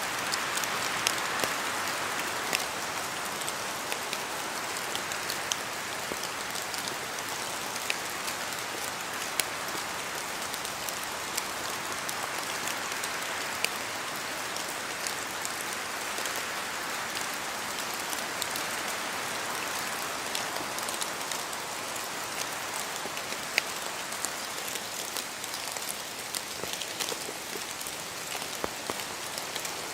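Steady rain falling in a spruce forest, with many sharp drip ticks of drops falling from the trees. A soft rushing of wind in the spruces swells and eases a couple of times.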